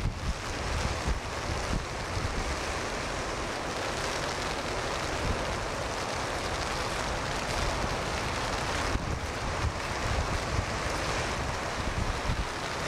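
Strong wind buffeting the microphone in gusts, over the steady roar of heavy surf breaking in a storm.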